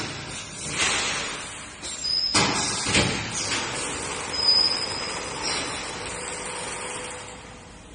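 A rice-flour packing machine working, with a series of sharp air hisses and whooshes of different lengths and a brief high whistle near the middle. The sound dies away shortly before the end.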